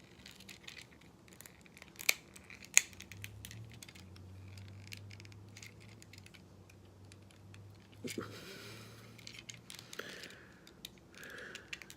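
Small plastic clicks and rattles as the parts of a Transformers Titans Return Bumblebee action figure are handled and pegged together into car mode, with two sharper snaps about two and three seconds in. A faint low hum runs through the middle.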